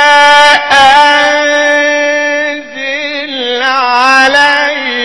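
A male Quran reciter's voice in melodic recitation, holding one long drawn-out note with a wavering pitch. After a short dip in loudness about two and a half seconds in, it moves through ornamented rises and falls in pitch.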